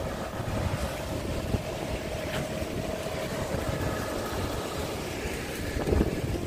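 Strong gusty wind buffeting the microphone and blowing through the trees, a steady low rumble.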